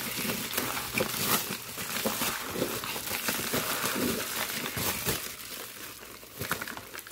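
Plastic bubble wrap being handled and pulled open around a camshaft, crinkling with dense small crackles. The crinkling thins out over the last second or so.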